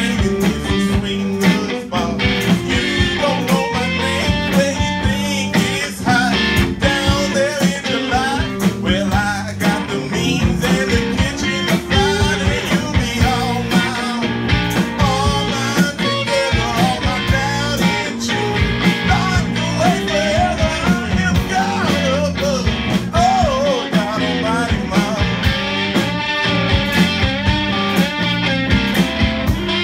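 Live blues-rock band playing: drum kit keeping a steady beat under electric bass and electric guitar, with bending lead lines.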